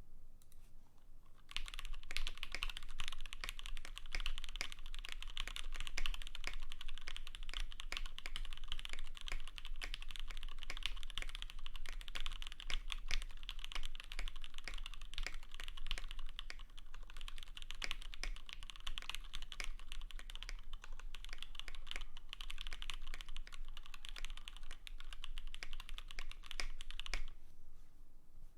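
Continuous fast typing on a KBD75 v3.1 custom mechanical keyboard with lubed, filmed Gateron X linear switches, a polycarbonate plate and JTK Zen keycaps. It starts about a second and a half in and stops shortly before the end.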